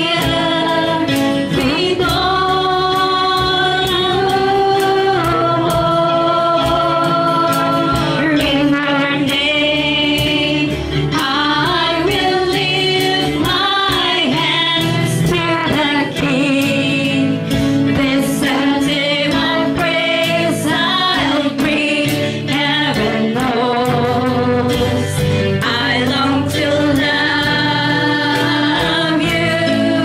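Gospel worship song: a woman's voice singing a melody over steady instrumental accompaniment.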